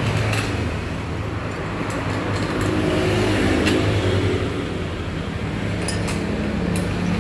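A motor vehicle engine running with a steady low hum that swells about three seconds in, with a few sharp clicks.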